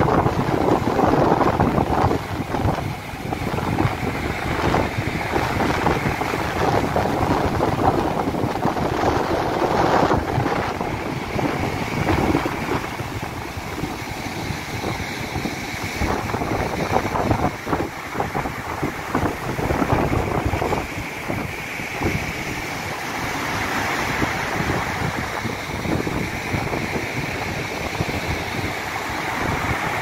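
Sea waves breaking and washing on the shore, with wind buffeting the microphone. After about twelve seconds the surf becomes quieter and more distant.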